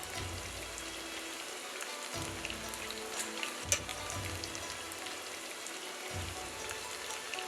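Food frying in hot oil, a steady sizzle with many small crackles and pops, under background music.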